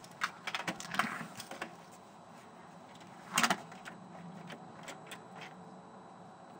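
Metallic clicks and rattles of a brass front-door handleset and lock being worked by hand, several quick clicks at first and a louder rattle about three and a half seconds in, then a few single clicks.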